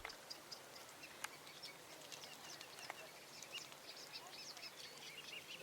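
Faint birdsong: small birds chirping and twittering, with two faint clicks about a second and three seconds in.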